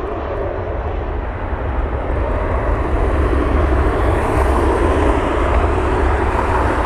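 Jet engines of a Boeing 737-800, its CFM56-7B turbofans, running on final approach. A steady rushing sound with a deep low rumble, growing louder as the plane comes closer to land.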